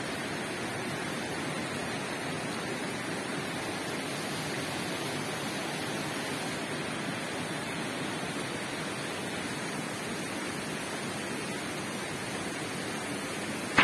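Steady rush of flowing water, unbroken and even throughout.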